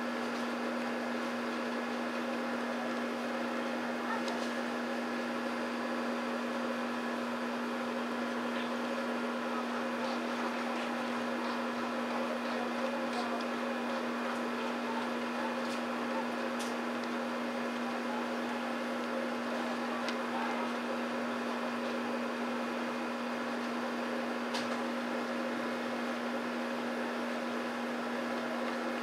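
A steady, unchanging hum over a constant hiss, with a few faint isolated clicks scattered through it.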